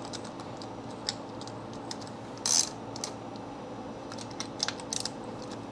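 A socket wrench on a 5/8 spark plug socket and extension tightening a spark plug down: scattered metallic clicks, a louder clack about two and a half seconds in, and a quick run of clicks near the end.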